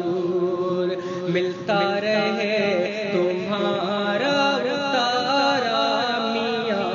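Wordless chanted melody in a naat: layered voices carry the tune with wavering, ornamented pitch between the sung verses, with a fresh phrase entering about two seconds in.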